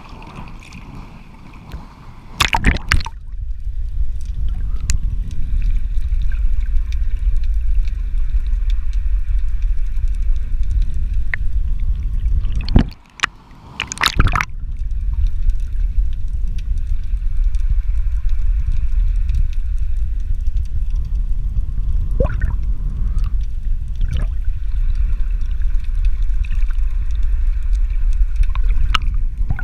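Seawater heard through a submerged action camera: a splash about three seconds in as it goes under, then a muffled, continuous underwater rumble and sloshing. A brief break comes near thirteen seconds with another splash, as the camera bobs up to the surface and plunges back down.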